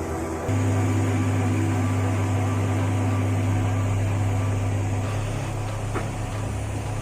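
Heavy machine's diesel engine running steadily, a low drone that gets louder about half a second in.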